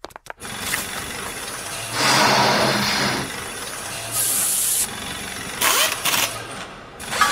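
Steady rushing sound effects, louder for about a second two seconds in, with an aerosol spray-tan can hissing for under a second about four seconds in.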